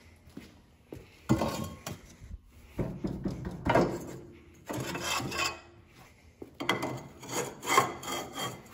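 Handling noise from a length of steel bar stock being picked up and moved around: a few separate scraping, rubbing bursts, with no saw running.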